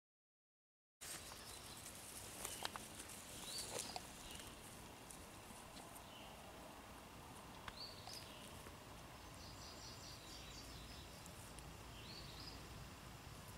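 Silence for about a second, then faint outdoor ambience with a bird calling a short rising phrase three times, about four seconds apart. A few clicks and rustles come near the start.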